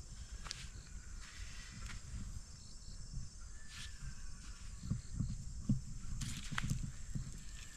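Rural outdoor ambience: a steady high-pitched insect buzz, with scattered clicks and rustles of footsteps and handling on the bank, a cluster of them about six seconds in.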